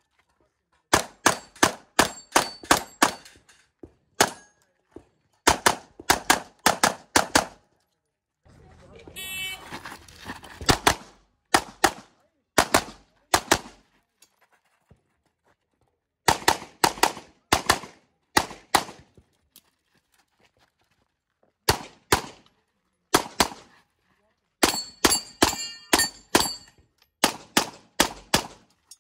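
Competition handgun fired in rapid strings of several shots a second, with pauses of a second or more between strings as the shooter moves between positions. About nine seconds in there are a couple of seconds of rushing noise between strings.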